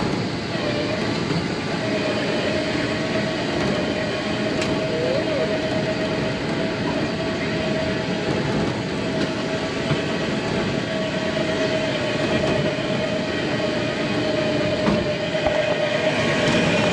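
A vehicle running steadily, a constant rumbling noise with a steady mid-pitched whine over it and a few faint clicks.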